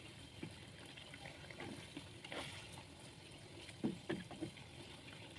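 Spatula stirring chicken wings and tofu through a simmering soy-sauce gravy in a granite-coated wok: faint scraping and light knocks against the pan, a few louder knocks about four seconds in, over a soft bubbling simmer.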